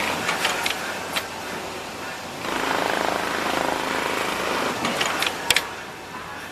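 Mitsubishi PLK-G6030 programmable pattern sewing machine stitching at speed with a rapid rattle. It pauses briefly about two seconds in, runs again, and drops away near the end. Sharp clicks come near the start and again just before it stops.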